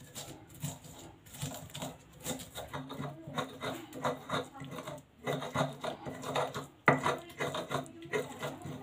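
Stone pestle grinding spices into a paste in a stone mortar (Indonesian cobek and ulekan): repeated rubbing, scraping strokes about three a second, with a brief pause about five seconds in. One sharp knock of stone on stone near seven seconds is the loudest sound.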